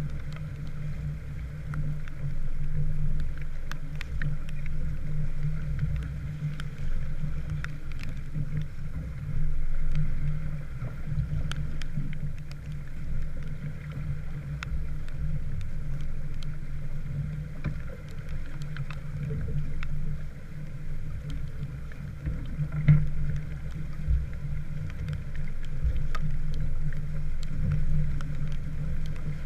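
A small wooden sailboat under way, with a steady low rush of water along the hull and scattered light ticks, fitting rain.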